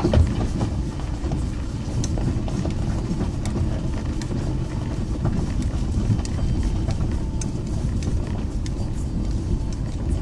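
Car rolling slowly down a steep gravel track, heard inside the cabin: a steady low rumble of tyres on loose gravel, with scattered small stones clicking and popping under the wheels.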